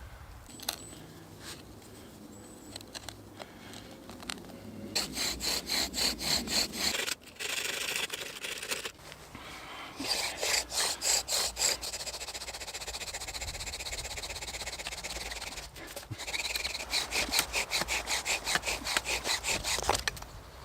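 Bow drill friction fire: a wooden spindle squeaks and grinds in its hearth board as the bow is sawn rapidly back and forth, in several bouts of fast even strokes with a steadier stretch in the middle, working to build an ember.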